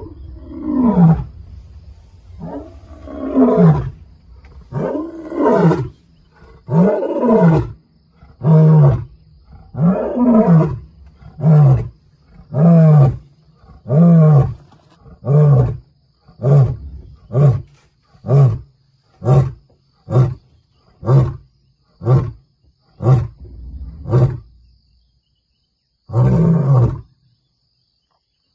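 Male lion roaring at close range, a full roaring bout. It opens with several long moaning roars that fall in pitch, then runs into a string of shorter grunting roars coming about once a second and growing shorter. A last grunt follows a short pause near the end. Territorial roaring that warns other males off his area.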